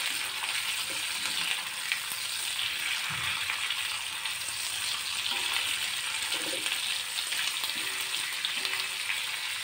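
Rohu fish steaks sizzling steadily in hot oil on a tawa, shallow-frying over a low flame.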